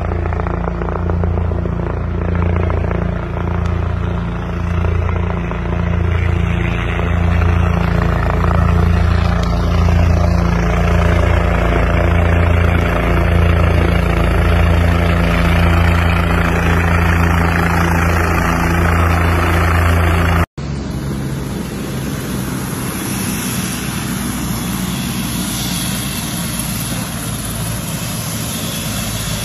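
Light helicopter coming in to land, its main rotor beating in a steady low thump that grows louder over the first several seconds. About two-thirds of the way through it cuts suddenly to a quieter, steady whir of the helicopter running on the ground.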